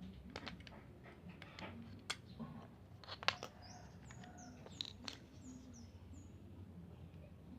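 Scattered faint clicks and taps, the sharpest about three seconds in, with a bird chirping a quick run of short, high, falling notes about halfway through.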